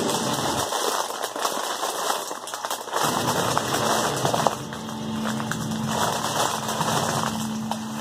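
Clear plastic bag of crackers crinkling and crackling as it is handled and pulled at by hand to open it.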